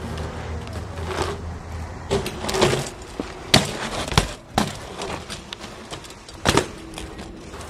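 BMX bike ridden on a tarmac street: tyres rolling over a low rumble, broken by about six sharp knocks and clacks as the wheels and pegs hit the ground and the frame rattles.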